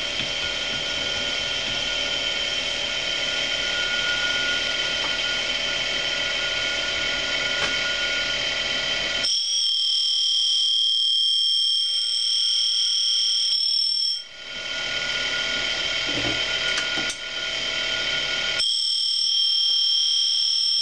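End mill grinder running with a steady high-pitched whine while its cup wheel grinds the primary angle on the end of a 3/4-inch end mill. About nine seconds in, and again near the end, the fuller noise underneath drops away for a few seconds, leaving only the whine.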